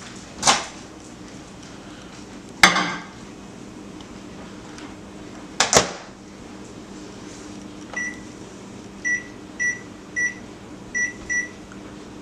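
Microwave oven door and bowl clunking three times as the pudding bowl goes in and the door is shut, then six short, single-pitched keypad beeps as a 10-minute cook time is keyed in.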